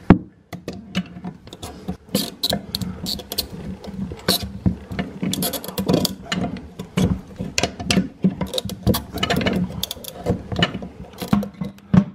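Channel lock pliers working a stiff plastic fill-valve nut under a toilet tank loose: an irregular run of clicks, knocks and scrapes as the metal jaws grip and turn the nut against the tank, with a sharp click at the start and another near the end.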